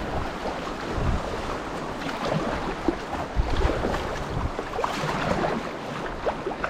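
Glacier-fed river water rushing and splashing steadily around a packraft, with wind buffeting the microphone in a few short gusts.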